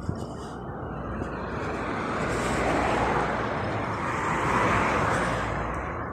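A road vehicle passing close by: its noise swells over a few seconds, peaks near the middle and fades away.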